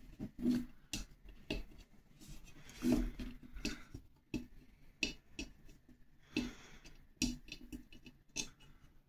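Irregular small clicks, taps and rustles of fingers handling a plastic zip tie against an aluminium box tube.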